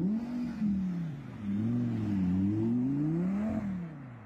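Audi R8 sports car engine revving as the car pulls away and accelerates, its pitch rising and falling several times and climbing highest near the end before fading as the car moves off.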